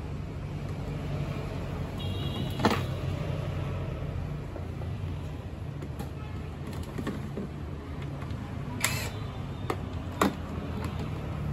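Plastic body parts of a child's electric ride-on motorbike being handled and fitted, with a few sharp clicks and knocks over a steady low hum.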